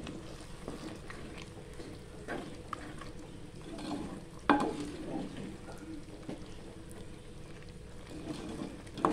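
A spatula stirring a thick curry in a cooking pot, with scraping and small knocks against the pot; one sharper knock about four and a half seconds in.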